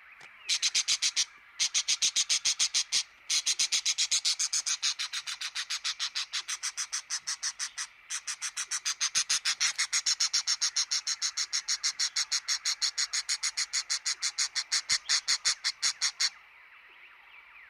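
An animal call played as a ringtone: a long, even train of sharp, clicking pulses, several a second, with three short breaks, that stops suddenly near the end, leaving faint chirping.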